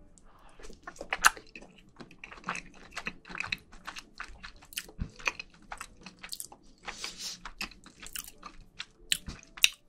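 Close-miked chewing of a mouthful of rice with spicy marinated raw crab: irregular wet mouth clicks and smacks, a few each second.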